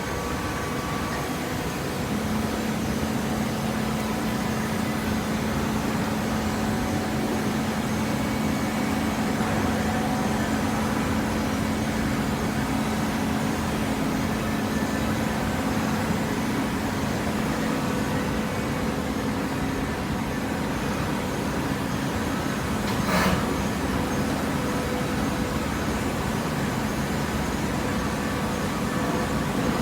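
Baler conveyor machinery running with a steady mechanical noise. A steady hum comes in about two seconds in and fades out past the middle, and a brief louder burst comes about three-quarters of the way through.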